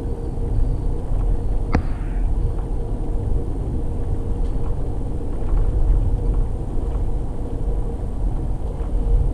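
Amtrak passenger train riding along, heard from inside the car: a steady low rumble of wheels on the rails with a faint steady hum, and one sharp click about two seconds in.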